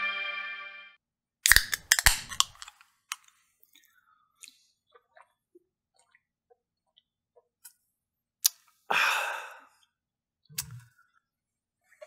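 A man drinking from a metal drink can: a cluster of sharp clicks and a brief hiss about a second and a half in, faint small swallowing clicks, then a short breathy exhale about nine seconds in.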